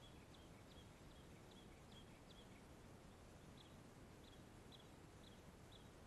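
Faint bird chirping: short, high, downward chips about two a second, pausing briefly midway, over a steady low hiss.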